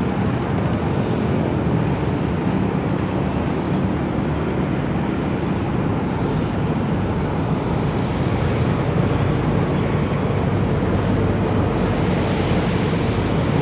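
Steady low rumble of engine noise mixed with wind buffeting the microphone, without a break.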